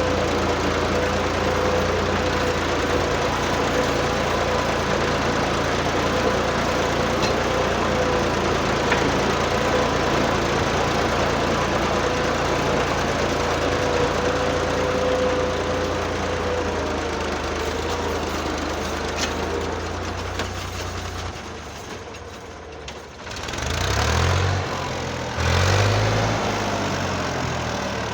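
Tractor's diesel engine running steadily. About twenty seconds in it fades away, and near the end two loud low rumbles swell up and die down.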